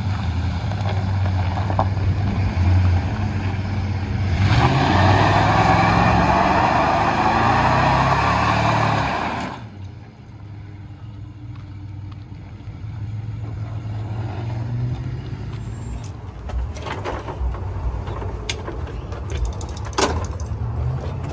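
A motor vehicle's engine running, revving up for about five seconds in the middle with a loud rushing noise, then dropping back to a quieter hum with a few clicks near the end.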